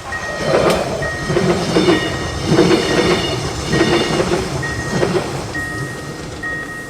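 A train passing over a level crossing, its wheels clattering in a run of heavy, uneven clacks. Under it the crossing's electronic warning signal keeps beeping about once a second.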